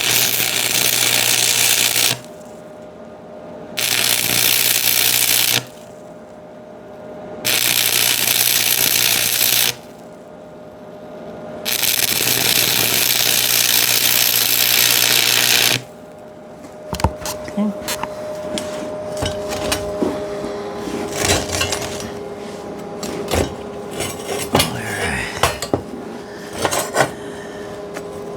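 Arc welding on 1-inch square tubing: four bursts of steady crackling hiss over a low hum, with short pauses between them. From about sixteen seconds in, light metallic clinks and taps follow.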